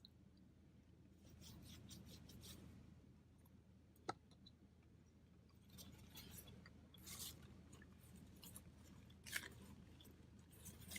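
Faint chewing of a sugar-coated pretzel nugget, in a few short spells of soft crackly mouth noise, with one sharp click about four seconds in.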